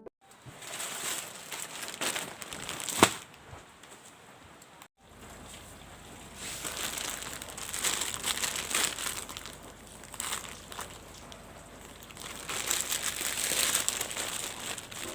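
Packaging being handled in an unboxing, crinkling and rustling with some tearing, and one sharp snap about three seconds in.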